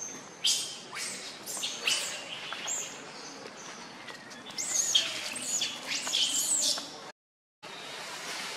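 Infant long-tailed macaque giving repeated short, high-pitched cries, most frequent about five to seven seconds in, cut off abruptly near the end.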